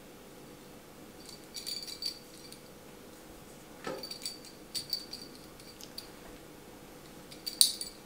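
A small bell jingling in short, light bursts, about five times, the loudest near the end, as cats play.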